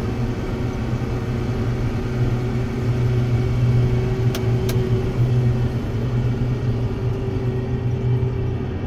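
Heavy farm vehicle engine running steadily at a constant speed, with two light clicks about four and a half seconds in.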